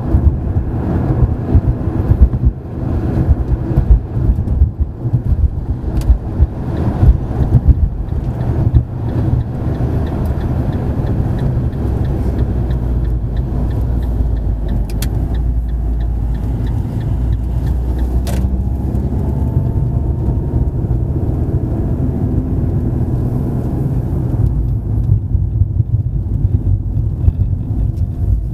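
A car driving through city streets: a steady low rumble of engine and road noise, with uneven knocks and thumps over the first several seconds before it settles into a smoother drone.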